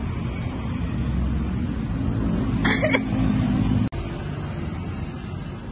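Steady low rumble of outdoor street ambience, with a single brief sound about three seconds in; the rumble drops a little with a cut just before four seconds.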